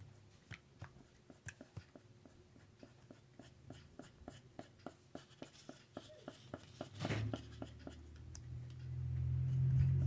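Paintbrush tapping and stirring against the inside of a plastic cup of paint water, a run of light ticks about three to four a second. A louder knock about seven seconds in, then a low rumble near the end.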